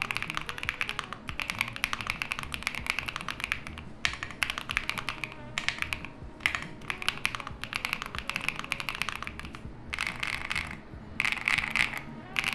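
Fast typing on a Monsgeek M1 V3 mechanical keyboard fitted with Akko x HMX Stellar linear switches with PA12 housings: a rapid stream of deep keystroke clacks, broken by a few short pauses.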